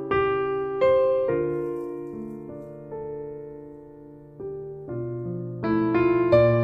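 Background music: slow piano, chords and single notes struck and left to ring and fade.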